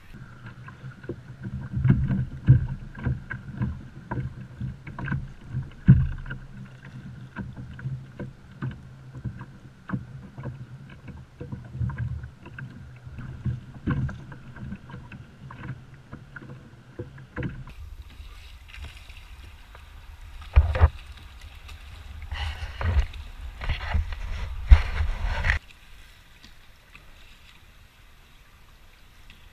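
Knocks and clicks of gear being handled on a plastic fishing kayak on open water, over a steady low background of water and wind noise. The sound changes character at edits about 17 seconds in, where the knocks get louder and more irregular, and goes quieter about 25 seconds in.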